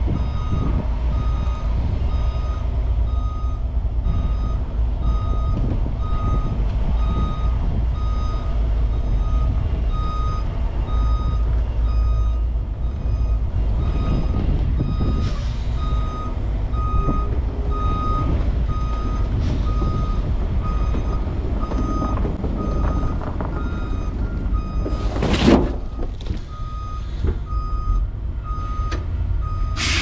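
Semi truck reversing, its backup alarm beeping steadily about once a second over the low running of the diesel engine. About 25 seconds in there is one short, loud burst of noise.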